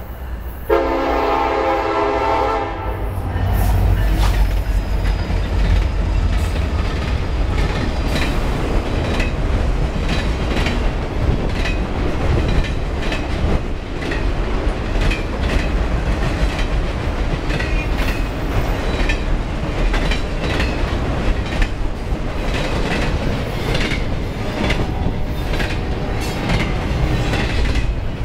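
Norfolk Southern SD70M-2 diesel locomotive's air horn sounds one chord for about two seconds, then the diesel locomotives pass. A long freight train follows, with a steady heavy rumble and regular clickety-clack of wheels on rail joints as autorack and double-stack container cars go by close at hand.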